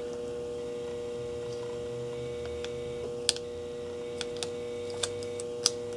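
Steady electrical hum with a handful of short, sharp clicks in the second half as packing tape is handled over the battery pack's wires.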